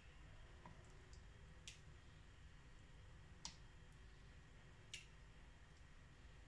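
Near silence: faint room tone with three short, sharp clicks spaced about one and a half to two seconds apart.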